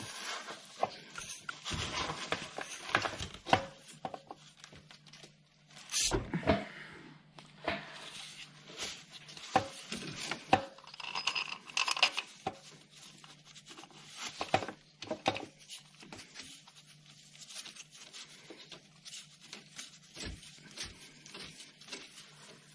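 Irregular metal clunks, knocks and scrapes as a replacement starter motor is worked up into position against the engine of a BMW 218d diesel and handled into place, with a faint steady low hum behind.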